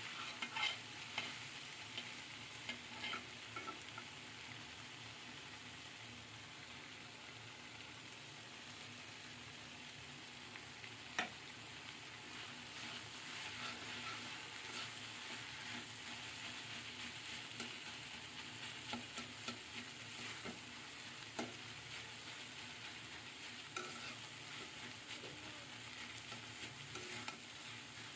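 Food sizzling in hot oil in a pan, stirred with a spatula that clicks and scrapes against the pan now and then.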